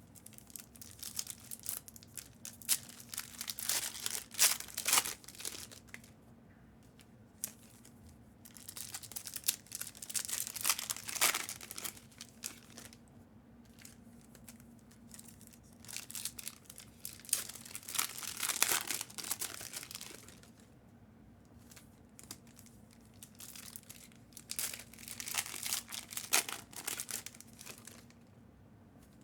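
Trading-card pack wrappers being torn open and crinkled, in four spells of rustling a few seconds each.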